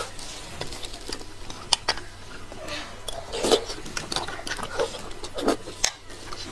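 Close-up eating sounds of marrow being sucked and slurped from the end of a large braised bone, with wet lip smacks and a few sharp clicks; the loudest slurps come about three and a half and five and a half seconds in.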